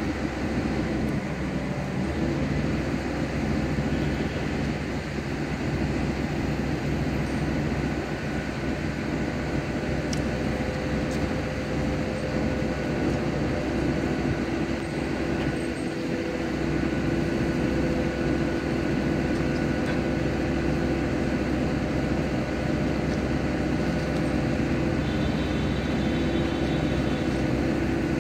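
Excavator's diesel engine running steadily, with a constant whine over its low drone.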